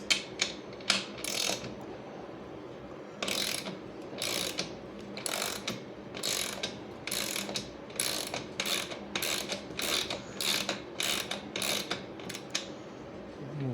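DeWalt hand ratchet clicking as it loosens a fastener with a 17 mm socket: a short run of pawl clicks on each back-swing. After a brief pause near the start the strokes come about once a second, then closer together towards the end.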